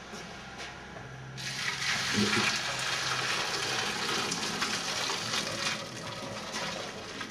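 Hot pasta water and spaghetti poured from a saucepan into a colander in a sink: a steady rush of splashing water that starts suddenly about a second and a half in and eases slightly near the end, the pasta being drained.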